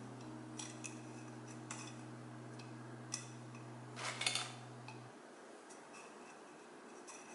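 Sparse small clicks and scrapes of a metal pick against a plastic oil filter housing cap as the rubber seal is worked into place, with a short cluster of them about four seconds in. Faint background music of low held notes stops about five seconds in.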